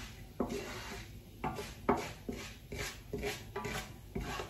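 Kitchen handling sounds: a run of short knocks and clinks of dishes and utensils, about two or three a second, with some rubbing and scraping between them.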